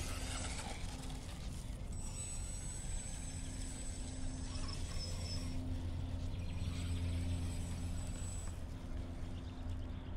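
Hosim 1:10 scale brushless RC truck running, heard over a steady low rumble. A thin, high, steady whine comes in about two seconds in and fades before the end.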